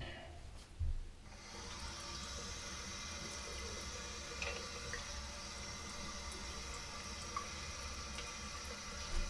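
A knock about a second in, then a bathroom tap running steadily into the sink.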